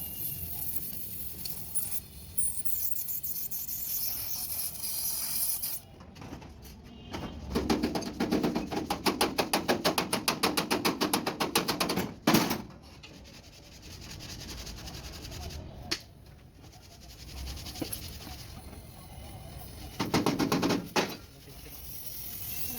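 Workshop noise: a fast, even run of repeated knocks for about four seconds in the middle, then a single sharp bang, and a short loud burst near the end.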